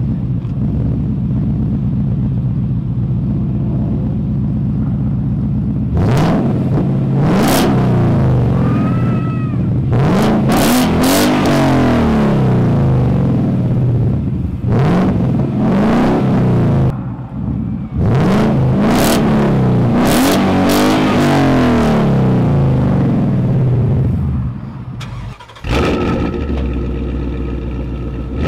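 Ford Mustang GT's 5.0 V8 through a Magnaflow Street Series exhaust, idling steadily for about six seconds, then revved in a series of throttle blips, each rising and falling in pitch. Near the end it gives way to another Mustang GT's V8 idling through a 2.75-inch Milltek catback exhaust.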